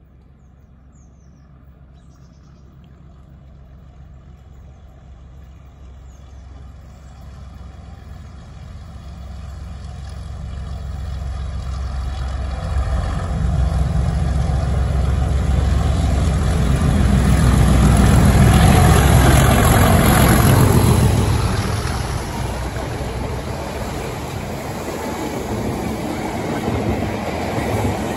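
Class 37 diesel locomotive 37884 thrashing as it approaches and passes, its English Electric V12 engine growing louder over about twenty seconds to a peak. After the peak the engine note drops away and the wheel and rail noise of the two unpowered Merseyrail Class 508 units it is hauling follows.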